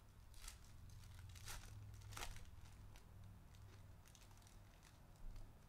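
Faint crinkling and tearing of a foil hockey-card pack being pulled open by hand, with a few short crackles scattered through.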